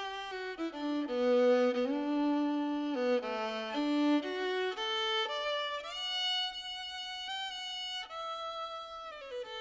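Background music: a slow violin melody of held notes that slide from one pitch to the next.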